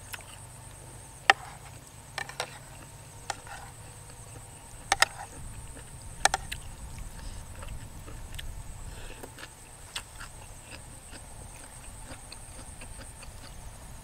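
Chopsticks and a metal spoon clicking sharply against a bowl of noodle soup while eating, several single taps spaced irregularly a second or more apart.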